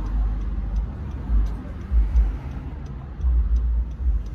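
Low, uneven rumble of a car heard inside the cabin, with faint ticks repeating at a steady pace.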